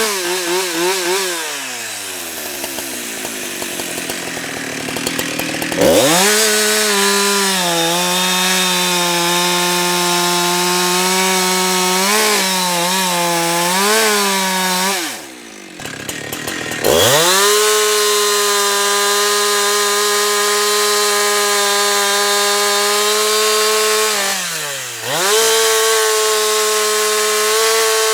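Husqvarna 365 two-stroke chainsaw running at high revs while cutting logs. The revs sag for a few seconds at the start, dip briefly around 12–14 s, and drop away twice more, near the middle and near the end, climbing straight back up each time.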